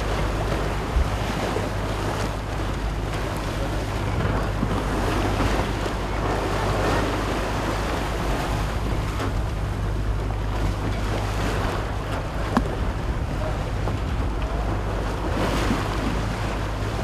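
Wind buffeting the microphone, a steady low rumble, over the rush of waves and spray from a boat under way in a choppy sea.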